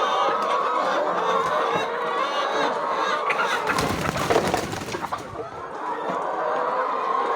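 Flock of chickens clucking and calling over one another, with a burst of rapid clicks and crackles from about three and a half to five seconds in.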